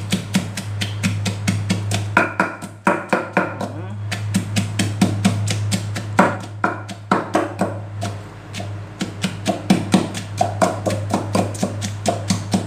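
Wooden pestle pounding shallots, garlic and chilies in a clay mortar: rhythmic knocks at about four strokes a second, with a steady low hum underneath.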